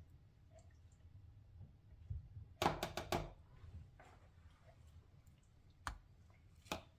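A quick run of about four sharp knocks, then two single knocks near the end, over a faint low steady rumble, heard while the crab is being seasoned.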